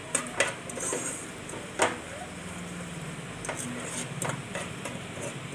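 Metal spoon stirring and scraping in a saucepan of melting sugar, with a few sharp knocks of the spoon against the pan, the loudest about two seconds in.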